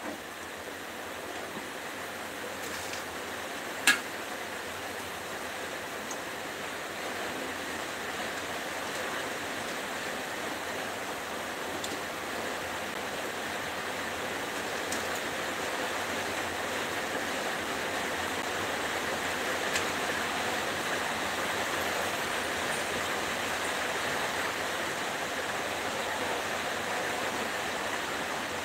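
Battered cauliflower pieces sizzling in hot oil in a wok, the sizzle steady and slowly growing louder. One sharp knock about four seconds in.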